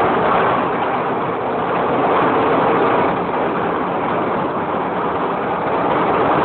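Deutz 358-series marine diesel engine running: a loud, steady mechanical din heard up close inside the engine room.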